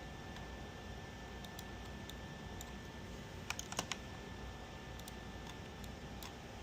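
Computer keyboard being typed on in sparse, short runs of keystrokes, with a cluster of louder clicks a little past the middle, over a steady low background hum.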